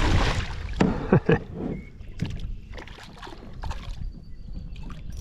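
Kayak on choppy water: water sloshing and splashing against the hull over a low steady wind rumble, with a burst of splashing at the start and a few sharp knocks about a second in, then lighter clicks.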